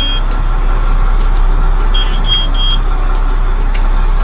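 Mack MP8 straight-six diesel idling just after start-up, with the dashboard warning buzzer beeping in quick groups of three, one group at the very start and another about two seconds in, while the warning lights are lit.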